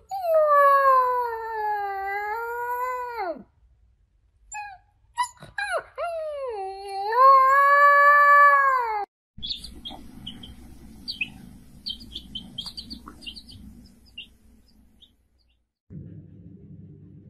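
Husky-type puppy howling: two long wavering howls, the second after a few short yips, each falling away in pitch at the end. After these, a quieter stretch of faint high chirps over a low hum.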